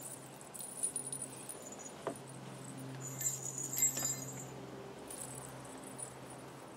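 Small metal pieces jingling in several short bursts, loudest about three to four seconds in, as the dog's costume and collar are handled, over a faint steady low hum.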